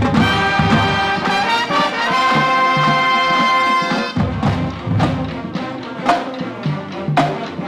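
Brass band music: held brass chords for about the first four seconds, then sharp percussive hits under shorter notes.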